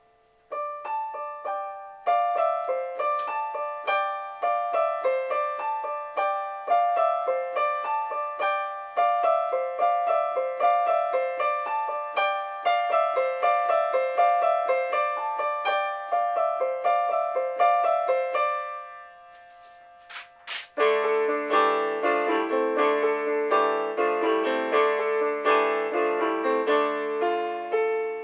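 Solo piano music, the composer's own piece played back from composition software: quick, evenly struck notes in the upper-middle range. About two-thirds through it stops briefly with a click, then resumes fuller, with lower notes added beneath.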